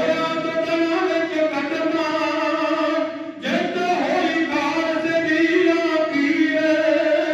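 A group of male kavishari singers singing unaccompanied in Punjabi, drawing out long held notes together. The singing breaks off briefly a little over three seconds in, then resumes.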